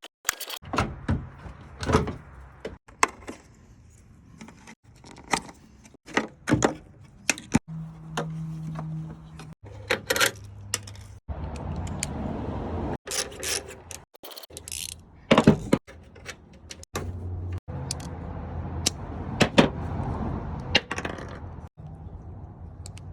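Irregular clicks, taps and metallic rattles of hand work with tools and small parts, broken by several abrupt cuts.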